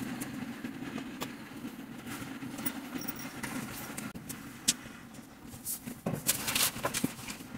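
Knocks and clicks from a white flat-pack IKEA furniture frame being handled during assembly, then a louder run of scraping and bumping about six seconds in as the frame is tipped over. A steady low hum runs underneath.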